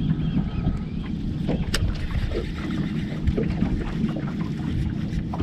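Wind rumbling on the microphone and water against a small boat's hull, choppy and unsteady, with a few light clicks and knocks scattered through.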